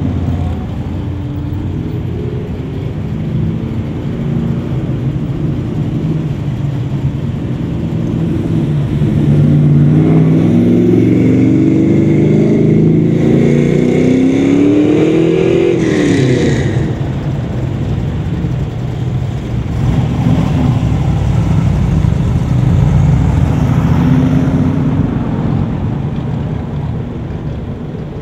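Parade vehicles driving past one after another. A Honda Gold Wing touring motorcycle goes by at the start. Then a first-generation Chevrolet Camaro's engine revs up, rising in pitch for several seconds before dropping away sharply as it passes. An old fire engine is pulling in near the end.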